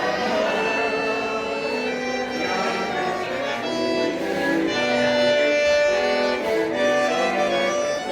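Street musicians playing a tune: a melody over held chords, the notes steady and changing every second or so.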